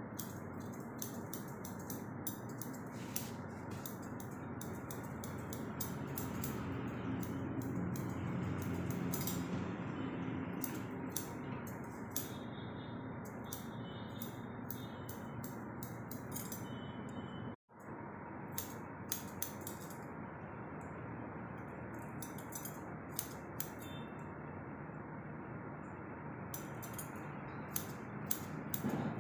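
Barber's scissors snipping hair over a comb: quick, irregular runs of light metallic snips over a steady background hiss, with a brief dropout about two-thirds of the way through.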